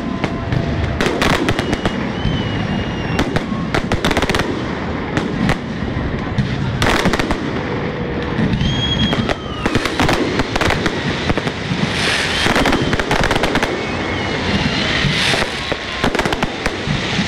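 Fireworks display with aerial shells bursting in a dense, continuous barrage of sharp bangs, with a few faint short whistles among them.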